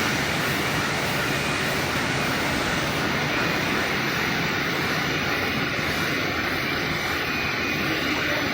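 Kraft paper roll slitting and cross-cutting machine running: a steady, even mechanical noise.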